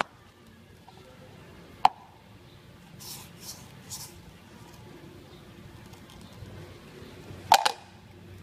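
A clear plastic camera dome being handled and set down on a concrete floor. A sharp click comes about two seconds in, then brief rustling handling noises. Near the end comes the loudest sound, a double knock as the dome is put down on the floor.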